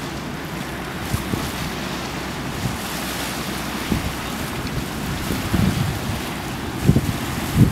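Wind blowing on the microphone, with irregular low rumbling gusts, strongest in the last few seconds, over a steady rush of river water churned by a passing yacht's wake.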